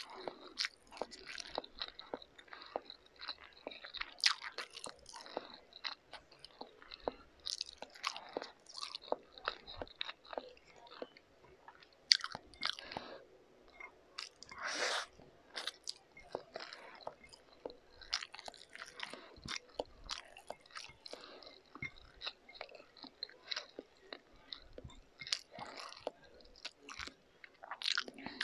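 A person chewing mouthfuls of instant pancit canton noodles: many short, irregular mouth smacks and clicks, a few louder than the rest.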